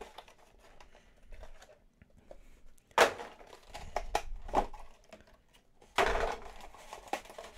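Foil booster packs and their clear plastic tray being handled and pulled from a card box: light crinkling and rustling, with a louder plastic crackle about three seconds in and a longer one about six seconds in.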